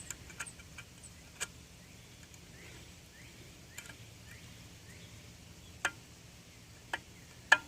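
A few sharp, isolated clicks, one about a second and a half in and three near the end, the last the loudest, from a Mitsubishi 3000GT's newly installed water pump, which binds at one point in its turn and has to be forced past; the owner suspects this is not right.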